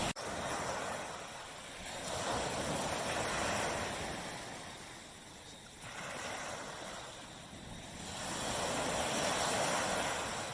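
Surf washing onto a tropical beach: a steady hiss that swells and ebbs every few seconds as waves break and draw back, with a brief cut-out just after the start.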